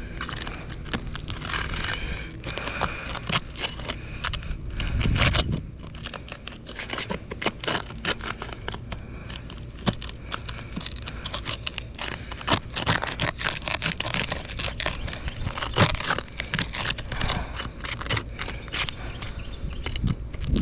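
Roof shingle being pried up: repeated scraping and crackling as it is worked loose from the roof, with a low rumble about five seconds in. The shingle is failing the repairability test, tearing instead of lifting free.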